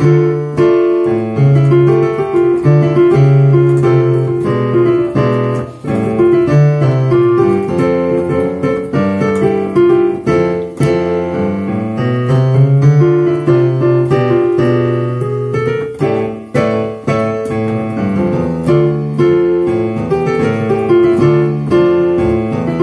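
A piano piece played by a student who is still learning it: a steady flow of melody notes over low bass notes in the left hand.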